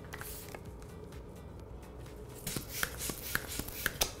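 Latex modelling balloons being handled and worked: faint rubbing, then from about halfway a run of small clicks, rubs and brief squeaks.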